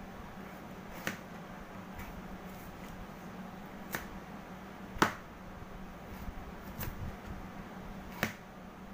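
Kitchen knife slicing carrot on a plastic cutting board: short, sharp knocks of the blade meeting the board, about one a second and unevenly spaced, the loudest about five seconds in. A faint steady hum runs underneath.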